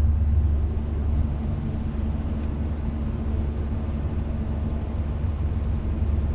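Road and engine noise heard inside the cabin of a moving vehicle: a steady low rumble with a constant hum.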